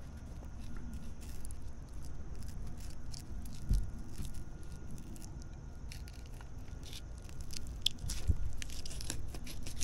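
Knife slicing along the backbone and ribs of a tautog (blackfish) on a wooden cutting board: faint crunching and scraping, with a soft knock about four seconds in and another near eight seconds.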